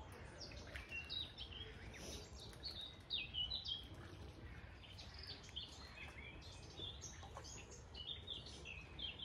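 Wild birds singing, a busy run of short chirps and twittering phrases, over a faint low rumble.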